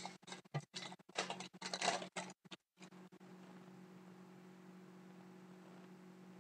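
Trading cards rustling and sliding against each other as they are handled, in choppy bursts for about three seconds. After that only a faint steady hum remains.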